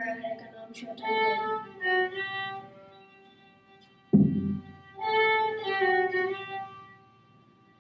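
A small group of fiddles playing a slow melody in two short phrases. A sudden thump sounds close to the microphone about four seconds in.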